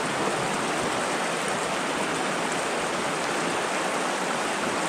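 Shallow, rocky creek running over stones: a steady rushing of water.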